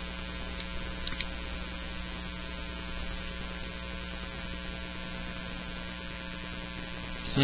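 Steady electrical mains hum with a faint hiss underneath, picked up in the microphone recording, with a couple of faint short clicks about a second in.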